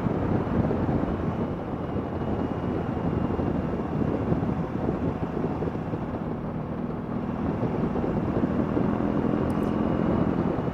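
BMW R18's 1.8-litre boxer twin engine running steadily while riding, mixed with wind and road noise.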